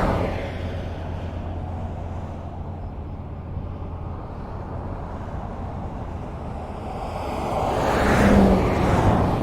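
Highway traffic: steady tyre and engine noise, with one vehicle passing and fading away at the start and another approaching, growing louder and passing close by near the end.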